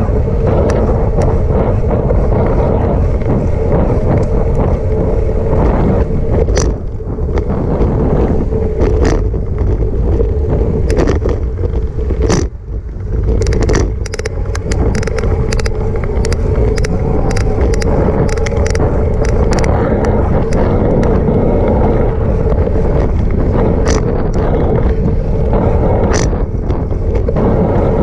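Riding noise picked up by a camera mounted on a moving bicycle: wind rushing over the microphone and a steady tyre rumble, with a steady hum under it. Frequent sharp clicks and rattles come through, thickest about halfway through, as the bike goes over bumps in the path.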